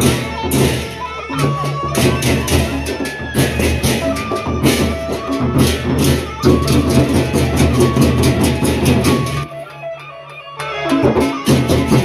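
Gendang beleq ensemble playing: large Sasak barrel drums beaten with sticks, with clashing hand cymbals and steady low tones underneath. The ensemble drops out briefly about nine and a half seconds in, then comes back in full.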